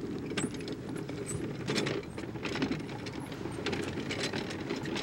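Steady mechanical rattling and clattering, with many small clicks and knocks over a dense low rumble.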